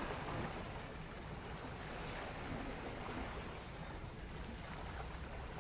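Small sea waves washing against shore rocks, a steady wash with a low rumble of wind on the microphone.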